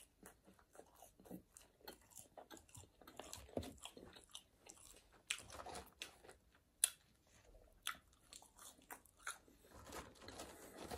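Close-miked eating of McDonald's fast food: biting and chewing, with many short, irregular crunches and crackles.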